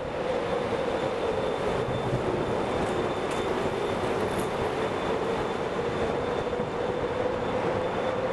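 Steady road and engine noise of a vehicle driving through a road tunnel, an even drone with a constant hum running through it.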